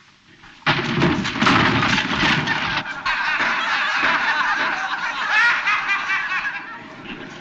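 A crowd laughing and snickering, breaking out suddenly about a second in and carrying on as a dense, many-voiced laugh.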